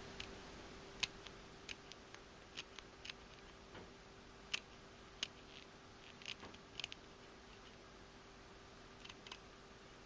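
Kitchen scissors snipping through the backbone of a small gutted largemouth bass: a dozen or so faint, sharp clicks at irregular intervals, over a faint steady hum.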